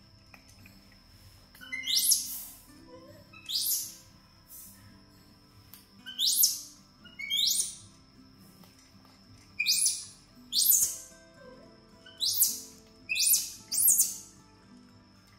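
A bird's short, sharp chirps, each rising quickly in pitch, repeated about once every second or two, over faint background music.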